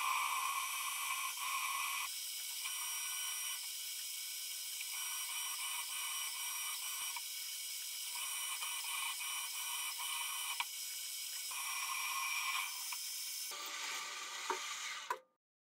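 Milling machine drilling into a round metal bar with a twist drill: a steady high motor whine under a cutting noise that rises and falls every second or two as the bit bites. It cuts off suddenly near the end.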